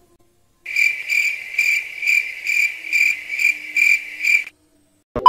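Crickets chirping as a sound effect: a steady chirp repeated about twice a second, starting about a second in and cutting off suddenly after nearly four seconds. It is the stock 'crickets' gag for an awkward silence after a joke.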